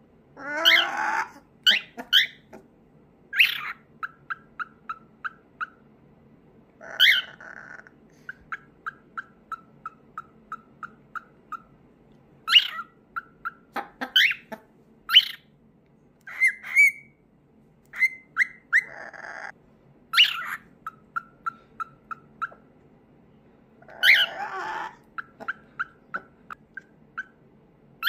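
A cockatiel and a white cockatoo calling back and forth: runs of short, evenly spaced chicken-like clucks, about three a second, broken by rising whistled chirps and a few harsh squawks.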